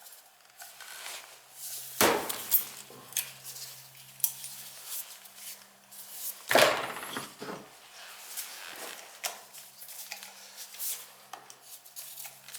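Metal tools and burner parts clinking and knocking during hands-on work on an oil burner, with two louder clanks about 2 and 6.5 seconds in.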